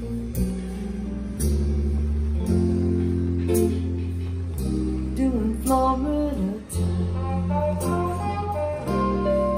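A recorded song played back through ATC SCM19 bookshelf loudspeakers in a room, in a break between sung verses: steady bass and guitar chords, with a melody line bending its notes about halfway through.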